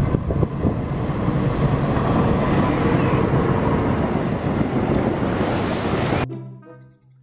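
A KAI diesel locomotive and its passenger coaches ploughing through flood water over the track: a loud, steady rush of spraying water over a low rumble, with wind on the microphone. The noise cuts off suddenly near the end.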